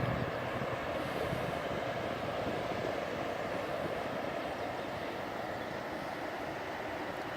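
Steady rushing wash of sea water and breeze around a kayak, with no distinct events.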